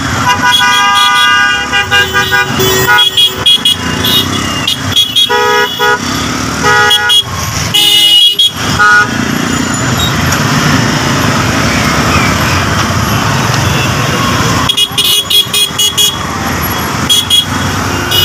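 Dense street traffic: vehicle horns honking over and over in short beeps, with engines running underneath. For a few seconds in the middle the honking stops and only the steady traffic rumble is left, then the horns start again near the end.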